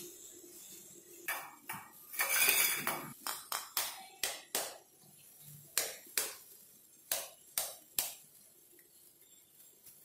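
A knife tapping a raw eggshell over a small steel bowl to crack it: a dozen or so sharp, uneven taps, with a longer noisy burst about two seconds in.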